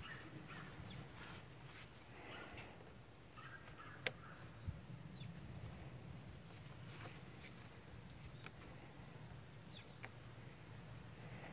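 Faint clicks and scrapes of pliers working spring hose clamps off the fuel lines of a diesel fuel filter, with one sharp click about four seconds in, over a steady low hum.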